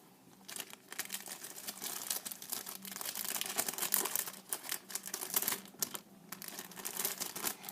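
Paper and plastic packaging being handled: dense, irregular crinkling and rustling with small clicks, pausing briefly about six seconds in.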